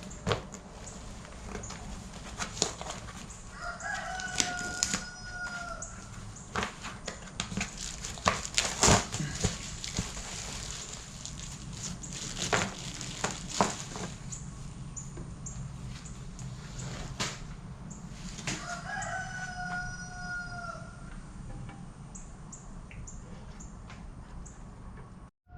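A rooster crowing twice, each crow about two seconds long and the two about fifteen seconds apart. Scattered sharp clicks and knocks run alongside, over a low steady hum.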